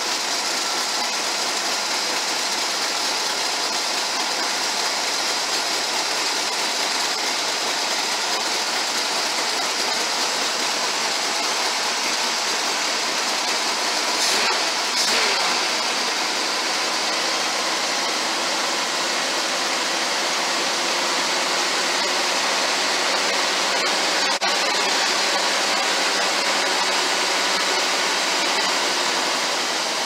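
Pontiac Firebird's carbureted engine idling steadily under a strong, even hiss, with a couple of brief knocks near the middle; the hiss fits what seems to be a vacuum leak somewhere.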